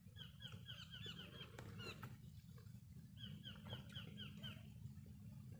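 A bird calling faintly in two quick runs of short, hooked notes, about eight a second and each run about a second long, over a steady low background noise.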